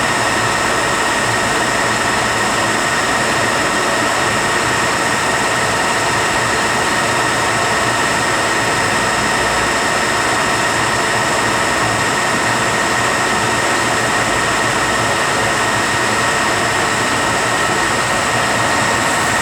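Rebuilt Eaton Fuller RTO-14609B truck transmission running on a dyno test stand, a steady machine drone with a constant high gear whine.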